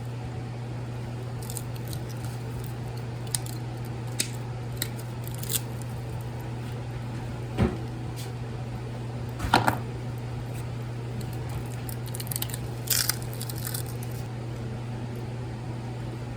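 Scattered sharp clicks and knocks from small metal scrap being handled, about eight to ten in all, the loudest near the middle and about three-quarters of the way through, over a steady low hum.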